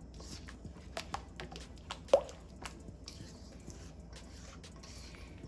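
Wet cake batter squelching as a silicone spatula stirs it around a stainless steel mixing bowl, with scattered soft clicks and one louder knock about two seconds in.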